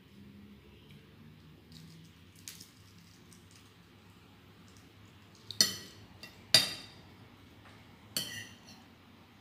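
A metal fork clinking against a dinner plate three times in the second half, each clink ringing briefly; the first two are the loudest.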